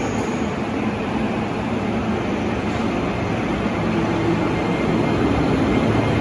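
E231-1000 series electric commuter train pulling out of the station, a steady rumble of wheels and motors that grows slightly louder as it gathers speed.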